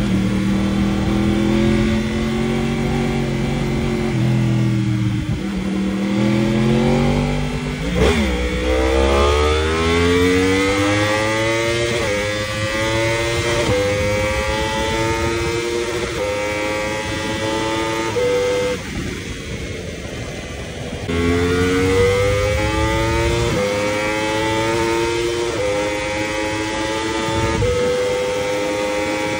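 Yamaha R1's crossplane inline-four, fitted with an Akrapovič titanium exhaust, accelerating hard at high speed. Its note climbs and drops back at each quick upshift. About two-thirds of the way in the throttle closes briefly and the sound dips, then it pulls up through the gears again over steady wind rush.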